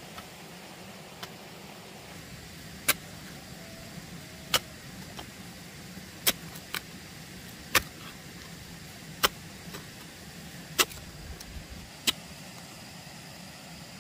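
Seven sharp knocks at a steady pace, about a second and a half apart, over a steady background hiss.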